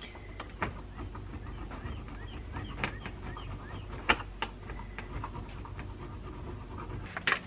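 Small carburetor parts and plastic bags being handled on a bench: scattered light clicks and rustles, a brief run of faint rapid squeaks around the middle, and a louder clatter near the end.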